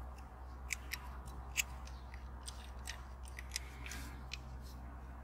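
A dozen or so sharp, irregular little clicks and taps from a small die-cast toy car being handled and turned in the fingers: a Corgi ambulance, its metal body and plastic parts knocking against fingernails.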